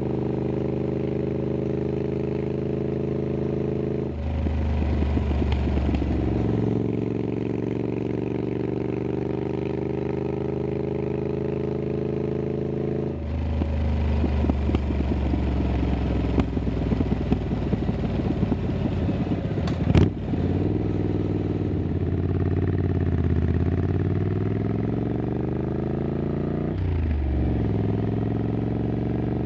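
Triumph Scrambler 900's parallel-twin engine running through an aftermarket exhaust while riding, heard from a bike-mounted microphone. The exhaust note runs steadily, with the engine opening up about 4 and 13 seconds in and a sharp crack around 20 seconds. The pitch falls and climbs again toward the end.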